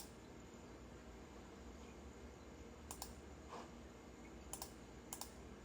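Near silence with a few faint, short clicks, at the start and then about three, four and a half and five seconds in.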